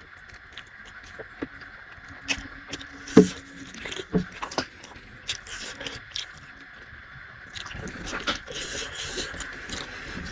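Close-up eating sounds: chewing and wet mouth clicks with small taps, the loudest a sharp click about three seconds in.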